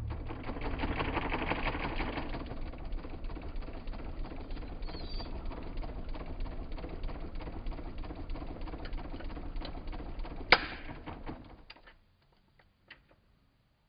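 Mondial Super Power 30 cm six-blade electric fan running with a fast, dense rattle of clicks. A sharp loud click comes near the end, then the sound dies away over about a second and a half.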